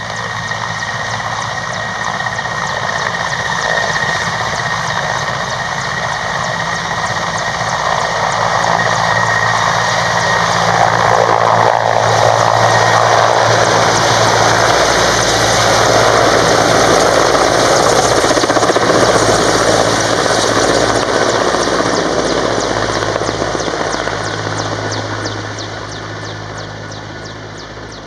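Mil Mi-17 military transport helicopter flying past: its turboshaft engines and main rotor, with a thin turbine whine and a steady rotor beat. It grows louder as it approaches, is loudest over the middle stretch as it passes overhead, and fades over the last few seconds as it moves away.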